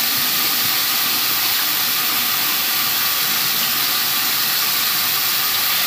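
Tap running hot water in a steady hiss.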